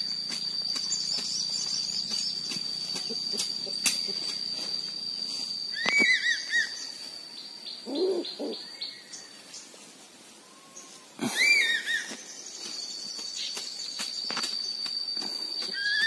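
An eagle circling overhead calling: short series of three or four high whistled notes, each rising then falling, repeated about every five seconds.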